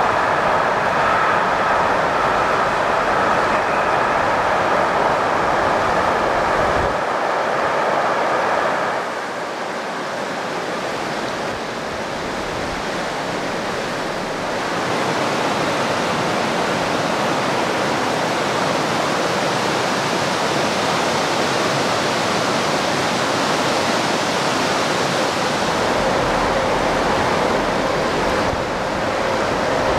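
Steady rushing of river rapids. For the first nine seconds or so, the rolling noise of a freight train crossing a bridge rides over the water, then fades. A low rumble joins near the end.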